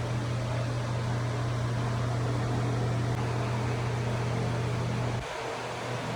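Electric fan running with a steady hum and whoosh of moving air. The hum drops away sharply about five seconds in, leaving a fainter hiss.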